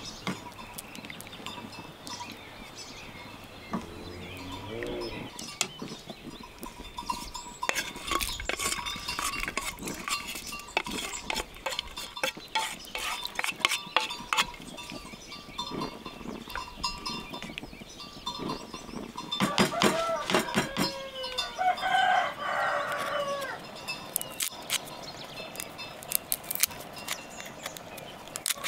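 Farmyard sounds: scattered metallic clinks like bells, with animal calls, the loudest calls about twenty seconds in.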